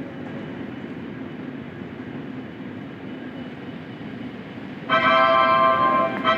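Train running with a steady low rumble; about five seconds in, its horn sounds a loud, steady-pitched blast that breaks off briefly near the end and starts again.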